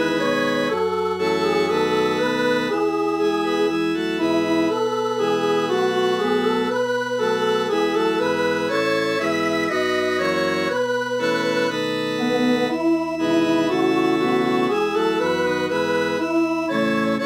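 Synthesized MIDI organ playing a several-part choral arrangement, rendered from NoteWorthy Composer notation as a soprano part-rehearsal track: sustained chords moving from note to note in even steps.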